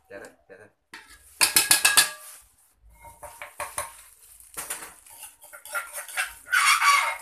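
Metal spoon clinking and scraping against an aluminium pot of chicken and herbs being stirred, with a quick run of loud clinks about a second and a half in. Plastic bags crinkle as herbs are handled, loudest near the end.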